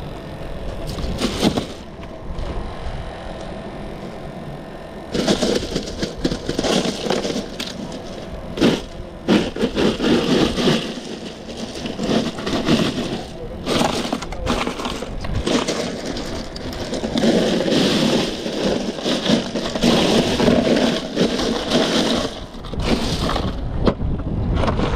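Crushed ice in a cooler crunching and clattering as a hand digs through it, in irregular bursts that start about five seconds in.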